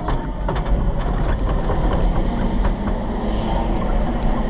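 Pierce tiller ladder truck on the move: a steady low engine and road rumble with frequent rattles and clicks.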